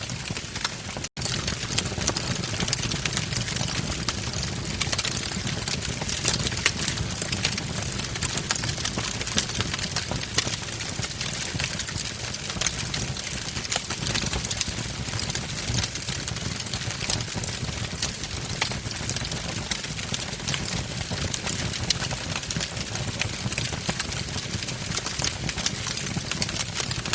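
Wood fire burning in a fireplace: a steady rush of flame with frequent small crackles and pops. The sound cuts out for an instant about a second in.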